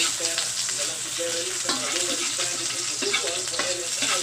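Chopped onion and garlic sizzling and crackling in hot oil in a metal wok as they are sautéed: a steady hiss full of small pops.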